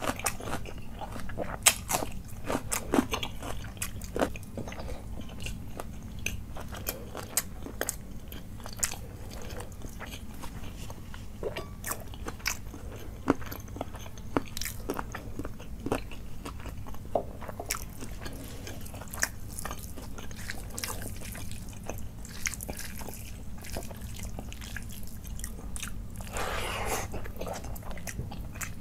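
Eating sounds of a person chewing rice and chicken curry eaten by hand: many short, sharp crunches and wet mouth clicks, with a longer rustle near the end.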